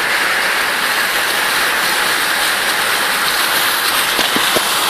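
Heavy rainstorm with floodwater: a loud, steady rushing hiss of rain and running water.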